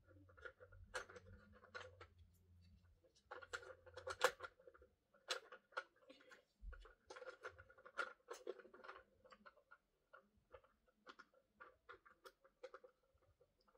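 Faint, irregular clicks, taps and scratching of a plastic toy being handled, with the sharpest click about four seconds in.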